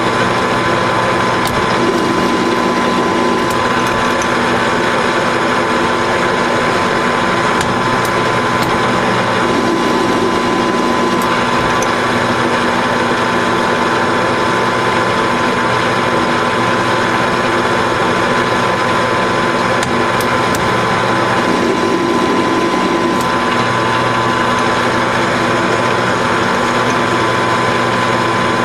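Grizzly G4003G metal lathe running steadily under power, its gear train giving a constant whine, while an insert threading tool cuts a 3/8-16 thread on a bolt in repeated passes. The running noise swells briefly a few times.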